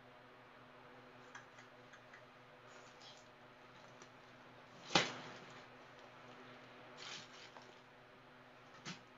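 Faint rustling and small clicks of a fabric waist bag and its strap being handled and put on, with one sharp click about halfway through.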